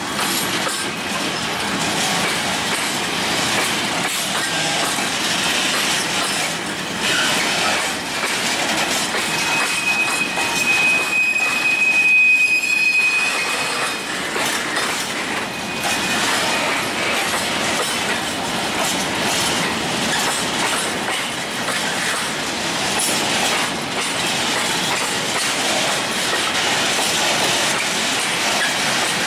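Freight train wagons rolling past close by: steady rumble and clatter of wheels over the rails. A single high, steady squeal sounds for about five seconds around the middle.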